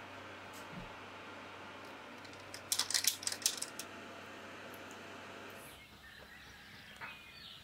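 A quick cluster of small plastic clicks and rattles from hands handling servo wire plugs on an RC truck's chassis. Near the end come a few faint bird chirps over quiet outdoor background.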